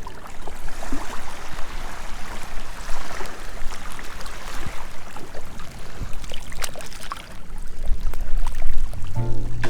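Sea waves washing onto the shore, a steady rush of surf full of small splashes and crackles of water, easing off about seven seconds in and swelling again near the end.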